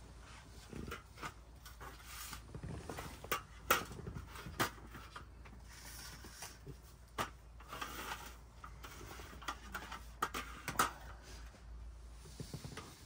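Scattered clicks and knocks of a frying pan, plates and cutlery being handled on a table as food is served, over a low steady hum.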